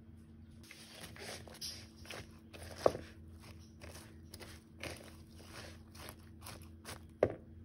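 Silicone spatula stirring shredded cabbage, carrot and corn coleslaw in a bowl: a run of crunchy, scraping strokes, with two sharper knocks, one about three seconds in and one near the end.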